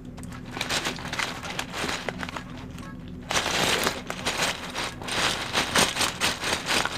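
Close-up handling of plastic keycaps and their packaging: irregular clicks and rattles, with louder rustling and crinkling from about three seconds in, over a faint steady hum.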